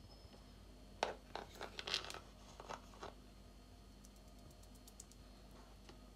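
A few short handling noises in the kitchen, loudest at the first, bunched between about one and three seconds in; otherwise only faint room tone.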